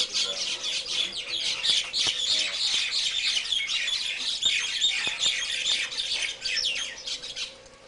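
A flock of small birds chattering, with many rapid, overlapping high chirps that stop abruptly about seven and a half seconds in.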